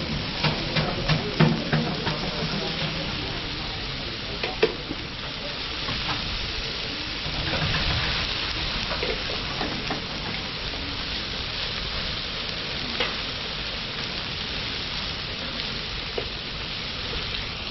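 Cajun-spiced chicken breasts sizzling steadily on a large flat-top griddle. The metal tongs turning them make sharp clicks and taps on the hot plate, most of them in the first two seconds.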